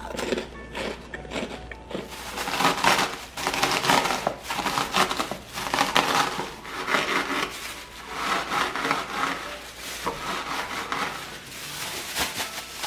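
Cheetos being crushed inside a plastic bag with a wooden rolling pin: crunching snacks and crinkling plastic in repeated rolling strokes, about one a second.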